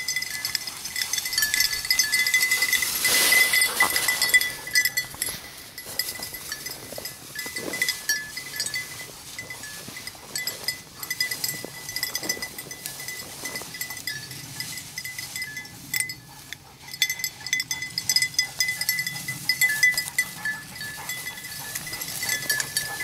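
A hunting dog's collar bell jingling on and off as the dog works through the brush, with brush rustling and swishing throughout.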